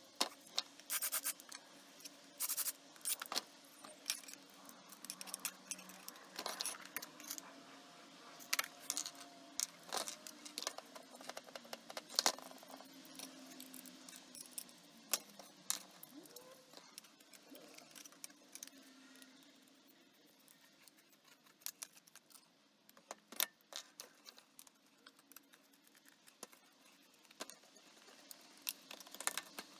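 Small screws, a screwdriver and 3D-printed plastic parts handled on a workbench: irregular clicks, taps and light clatter, busiest in the first half.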